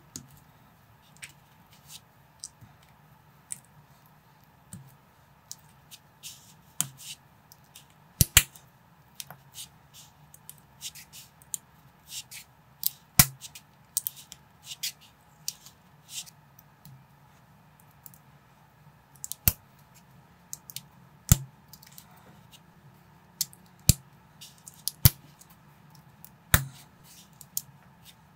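Plastic building bricks being handled and pressed together by hand: a string of irregular sharp clicks, with a few louder snaps as pieces seat onto their studs.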